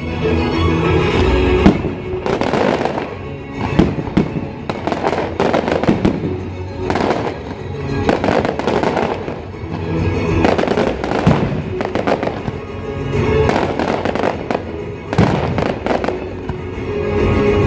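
Ruggieri aerial firework shells bursting in quick succession, a dense run of bangs and crackles, often several a second. Music plays underneath.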